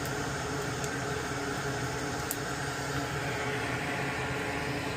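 Steady airy whir of a hot-air rework station's blower running while the relay's solder is heated, with two faint ticks of tools on the circuit board.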